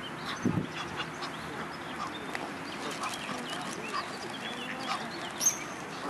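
A flock of Egyptian geese and ducks calling in many short, overlapping honks and quacks as they crowd in to be fed, with one louder, shrill call near the end.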